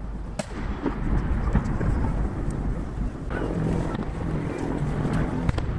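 Distant aerial fireworks shells bursting one after another, heard as a continuous low rumble of booms and their echoes with a few sharp cracks, played back at three times speed.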